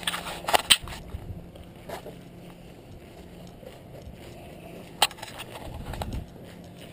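Footsteps on a concrete walkway with clothing and handling rustle: a few louder knocks near the start, scattered light clicks, and one sharp click about five seconds in.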